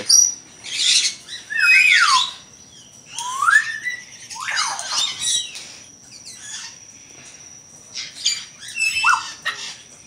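Cockatiels calling: short chirps and squawks that glide up and down in pitch, several times over, with a thin steady high tone behind them.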